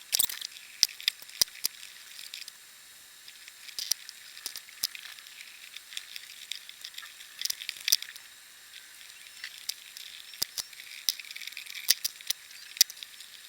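Scattered sharp clicks, taps and light scraping of an electrical outlet, its wires and a screwdriver being handled while the wires are fastened under the terminal screws, over a faint hiss.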